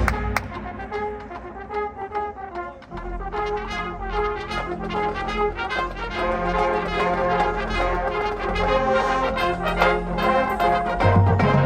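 High school marching band playing, led by its brass: after a loud opening hit the music drops to a softer passage, then low brass comes in about three seconds in and the band builds steadily louder. Light percussion strikes run through it.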